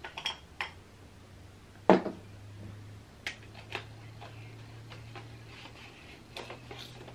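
Scattered plastic clicks and knocks from a Canon EOS R50 mirrorless camera body being handled, with its battery being checked and a lens brought up to its mount near the end. The loudest knock comes about two seconds in, and a faint low hum runs underneath.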